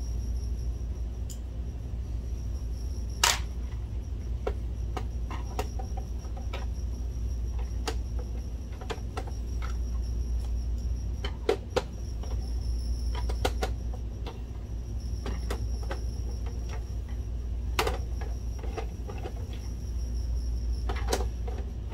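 Scattered clicks and light knocks of hands and a screwdriver working on a plastic projector case as its bottom screws are taken out and the case is tilted, with a sharper click about three seconds in. A low steady hum runs underneath.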